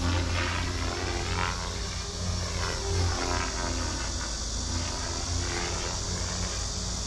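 Radio-controlled helicopter flying overhead: its rotor and drivetrain whine sweeps up and down in pitch every second or two as it manoeuvres, over a steady low hum.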